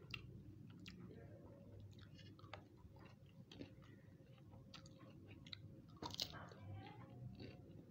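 Quiet chewing of crisp homemade potato chips and fried rice: scattered small crunches and clicks, with one louder crunch about six seconds in.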